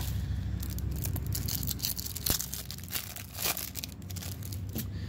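Clear plastic wrapper of a trading-card pack being torn open and crumpled by hand: an irregular run of sharp crinkling crackles.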